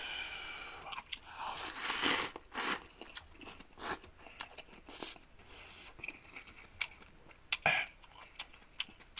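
A man eating instant ramen noodles, slurping them up and chewing noisily. The slurping is loudest about two seconds in, followed by scattered wet mouth clicks and smacks.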